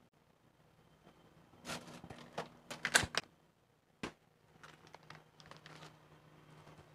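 Faint rummaging in a refrigerator's freezer compartment: frozen plastic-wrapped packets rustling and knocking, with a busier cluster of clicks and rustles about two to three seconds in. The freezer door is shut, and there is a single sharp click just after four seconds, followed by soft rustling of the bag.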